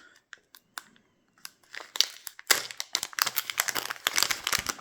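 Packaging being handled: a few light clicks, then from about a second and a half in a dense run of crinkling and crackling as wrapping is rummaged through and opened.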